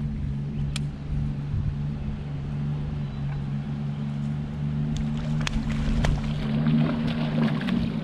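Steady low hum of a boat motor while the boat moves along the river, cutting off shortly before the end. Faint clicks sound above it, and wind buffets the microphone as the hum stops.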